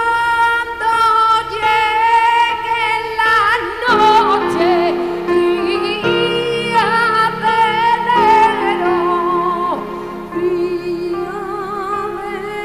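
A female voice sings a slow melody of long held notes with vibrato. Lower accompanying notes come in underneath about four seconds in.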